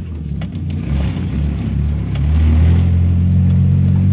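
Car engine and road noise heard from inside the cabin: a low rumble that grows louder about two seconds in and settles into a steady hum.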